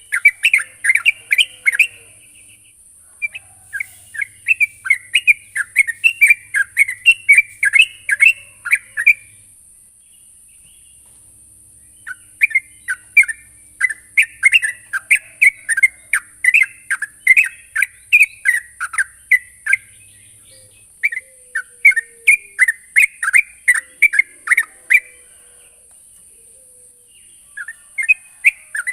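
Yellow-vented bulbul (trucukan) singing in full voice, as a rival-challenging song: phrases of rapid bubbling, chattering notes several seconds long, broken by short pauses. A steady high hiss runs underneath.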